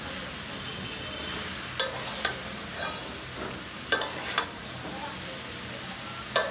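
Cauliflower and other vegetables sizzling as they are stir-fried in a metal karahi. Five or so sharp clinks and scrapes come as a metal spatula strikes the pan.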